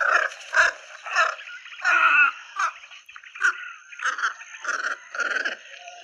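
Squacco heron giving its squawking alarm or flight call: a string of about nine harsh squawks, mostly short, with a longer one about two seconds in. A thin steady high whine runs underneath.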